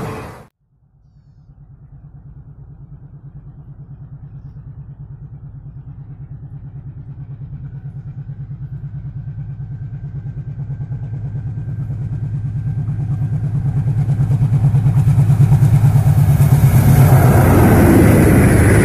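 Diesel locomotive approaching, its low, rapidly pulsing engine beat growing steadily louder, with a hiss building over the last few seconds as it draws near.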